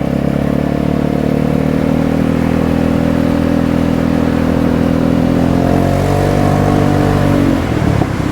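Vespa 250 GTS scooter's single-cylinder four-stroke engine running under way through its quite loud exhaust. The engine note slowly sinks, climbs again about six seconds in, then drops off sharply as the throttle closes near the end.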